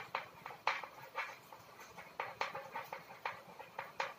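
Chalk tapping and scratching on a chalkboard as words are written: an irregular run of short clicks, about three or four a second.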